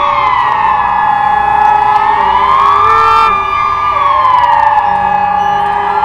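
Electronic civil-defence siren with horn loudspeakers sounding a slow wail that glides down, rises over about two seconds, holds, then falls and holds low again. This is the Swiss "general alarm" signal sounded in the annual nationwide siren test.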